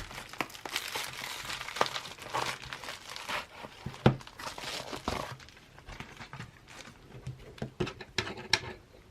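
Packaging being unwrapped by hand, crinkling densely for about five seconds, then thinning to scattered crackles and a few sharp clicks near the end, with one knock about four seconds in.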